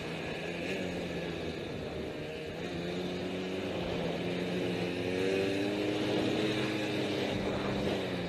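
Vehicle engine running steadily, its pitch rising slightly in the middle and easing off again near the end.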